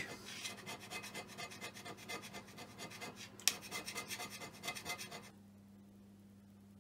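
Hand scraper pushed in quick, repeated short strokes across the milled face of a cast-iron straightedge casting, with one sharp click about three and a half seconds in; the scraping stops about five seconds in. This is rough scraping, knocking down the high spots that the bluing marks.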